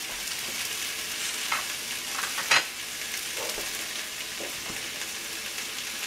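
Carrot slices and spinach sizzling in a hot sauté pan: a steady frying hiss with a few brief crackles, the sharpest about two and a half seconds in.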